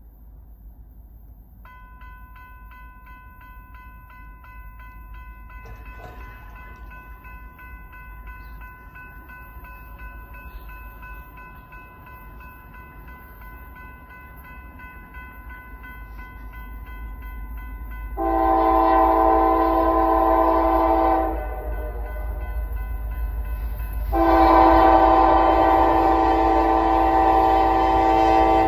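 Nathan K5LA five-chime horn on NS Dash 9-44CW locomotive 9728, sounding two long blasts, the first about three seconds long past the middle and the second running on near the end, as the train approaches, the long-long opening of a grade-crossing signal. Under it the train's low rumble grows slowly louder, and a steady high ringing tone sounds from about two seconds in.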